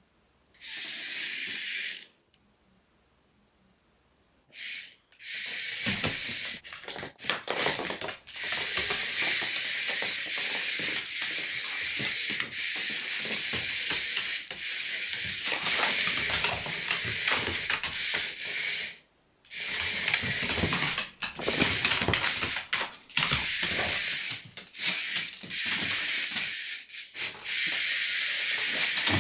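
Small electric motors of battery-powered toy cockroaches running with a high, hissing, rattling whir, starting and stopping several times, with a long pause near the start. Scattered knocks and clicks on the hardwood floor mix in.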